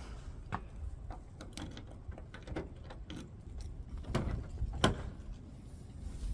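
A scatter of short mechanical knocks and clicks over a low rumbling background, the loudest about five seconds in.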